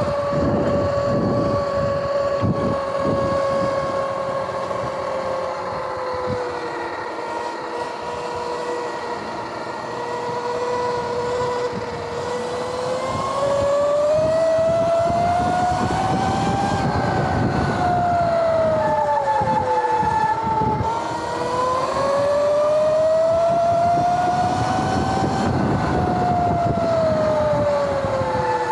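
Sur-Ron electric dirt bike's motor and primary chain drive whining while riding, the pitch gliding up as it speeds up and down as it slows, twice in the second half, over tyre and wind noise.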